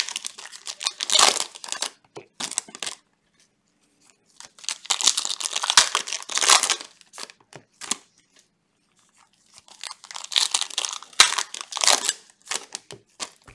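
Foil trading-card pack wrappers torn open and crinkled by gloved hands, in several bursts of crackling with short quiet gaps between them.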